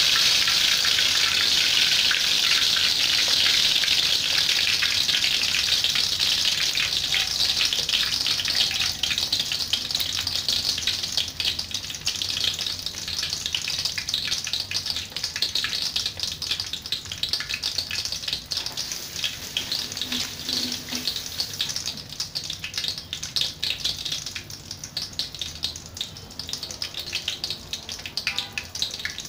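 Whole snakehead fish frying in shallow oil in a wok: a continuous sizzle with fine crackling, loud at first and gradually dying down.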